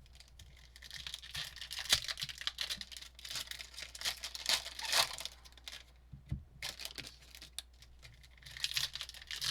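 Trading-card packaging being torn open and handled: wrappers and cardboard tearing and crinkling, with scattered sharp clicks.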